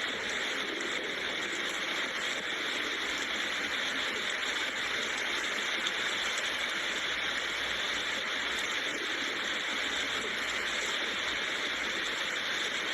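Steady rain falling, an even, unbroken hiss with faint scattered drop ticks.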